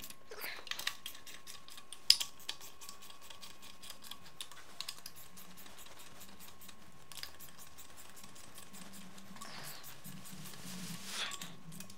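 Socket ratchet clicking in quick runs as the case-half nuts of an air-cooled VW engine case are snugged down, with one sharper click about two seconds in.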